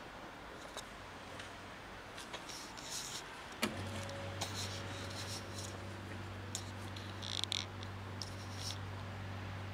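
Outdoor air-conditioner condensing unit switching on with a sharp click about a third of the way in, then a steady low electrical hum. Scattered light rustles and clicks come before and after it.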